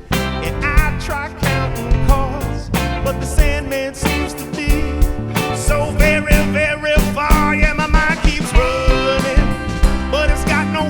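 Live soul band playing a passage between sung lines: a steady drum-kit beat, bass, and a wavering melody line with vibrato over chords.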